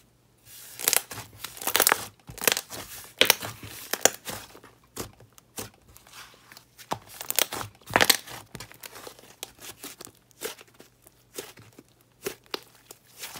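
Thick clay-textured marshmallow slime being stretched, folded and squeezed by hand, giving irregular sticky crackles and pops, the loudest about one to four seconds in and again about eight seconds in.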